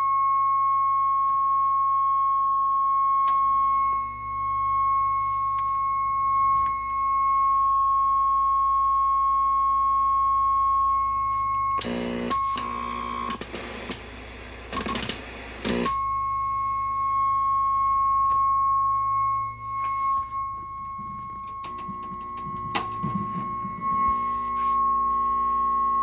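A steady high test tone with a faint overtone, over a low hum, from the 1969 Zenith tube TV's speaker now that its audio has come up. About halfway through, the tone drops out for a few seconds of crackling static bursts, then comes back steady.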